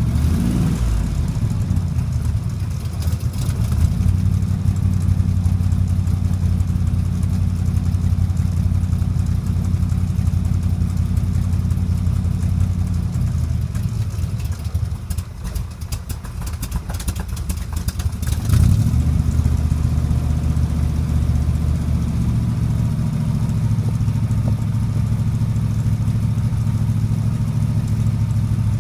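Chevy V8 engine in a Dax Cobra kit car idling steadily, with a short blip of the throttle about half a second in and another about two-thirds of the way through. The idle dips and weakens for a few seconds just before the second blip.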